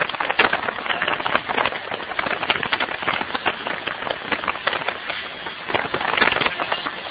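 A large vehicle fire crackling, with a dense, irregular run of sharp pops.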